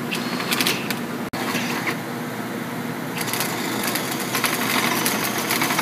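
Milwaukee cordless drill running steadily under load, turning a 1 3/4-inch bit through the metal wall of an explosion-proof junction box. There is a momentary dropout about a second in.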